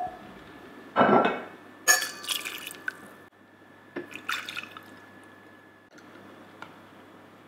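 Drinks being poured into a stainless steel cocktail shaker. A shot of rum goes in with a short splash about a second in, and a glass clinks sharply just after. Around four seconds in, juice is poured in from a bottle.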